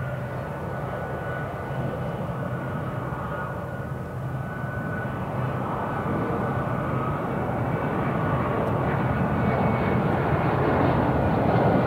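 Boeing C-17A Globemaster III's four Pratt & Whitney F117-PW-100 turbofans running at low taxi power: a steady jet whine over a low rumble, slowly growing louder.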